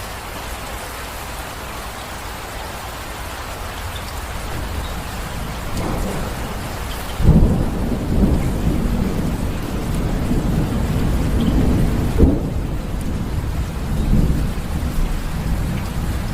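Steady rain falling, with thunder rolling in partway through: a low rumble builds, then a sharp loud clap about seven seconds in and another about twelve seconds in, with rumbling carrying on to the end.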